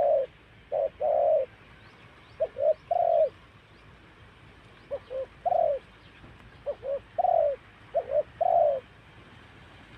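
Spotted dove cooing: repeated phrases of two or three short coos ending in a longer coo, a new phrase every second or two.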